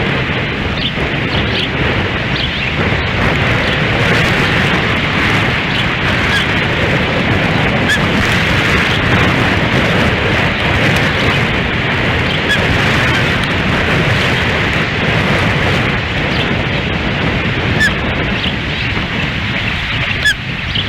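Strong wind buffeting the nest camera's microphone, a steady loud rushing roar, with a few faint short high chirps scattered through it.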